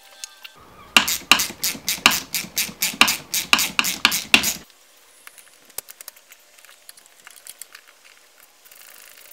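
Loud metallic clacking in a steady rhythm, about four clacks a second for roughly four seconds, stopping suddenly. Faint scattered small clicks follow.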